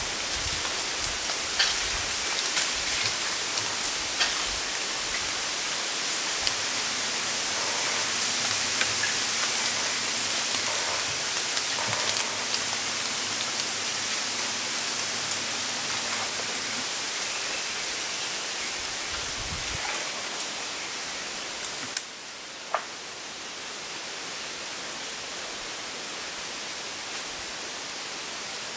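Breeze rustling through the leaves of a bamboo grove: a steady hiss with scattered light clicks. It eases off a little about two thirds of the way through.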